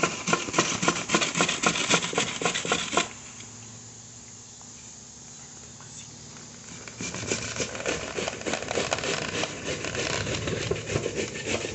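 Cabbage being grated by hand on a grater: quick repeated scraping strokes, pausing for a few seconds in the middle before starting again.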